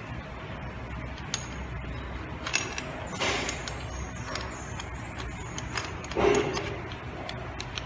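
Light metallic clicks and clinks from handling an angle grinder and its freshly fitted grinding disc and nut, over a steady low hum. Two louder, brief noises come about three and six seconds in.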